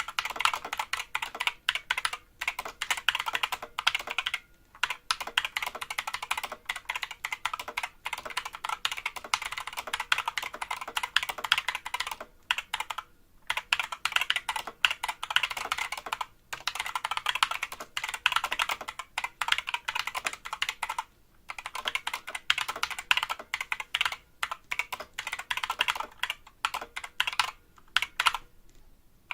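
Typing on a Skyloong GK61 60% mechanical keyboard with Gateron yellow linear optical switches: fast runs of keystroke clacks broken by short pauses. The keystrokes ring, which the reviewer puts down to the hollow bottom case amplifying the sound and to plate resonance.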